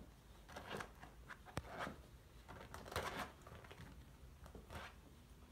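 Faint scratching and rustling in short scuffles: a meerkat's claws scrabbling on a fabric sofa as it climbs and paws at a cat, with a sharp click about a second and a half in and the loudest scuffle about three seconds in.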